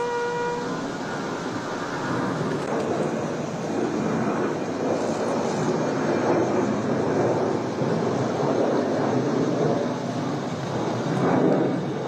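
A held brass note, a bugle call's final tone, ends just under a second in. After it a steady rumbling noise swells and fades, loudest around the middle and again near the end.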